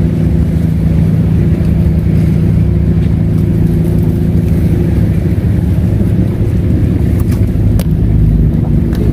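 A steady engine running at an unchanging pitch, a constant low hum, with a few sharp clicks in the second half.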